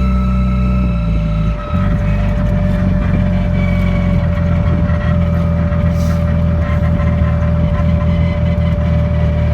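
A car engine running steadily, with an even low drone and a steady whine over it. The note dips briefly about one and a half seconds in, then settles back.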